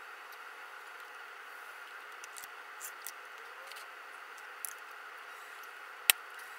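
Small taps and scrapes of a potter handling clay and a wheel bat, then one sharp knock about six seconds in as a square bat is set down onto the wet wheel head. A steady hiss runs underneath.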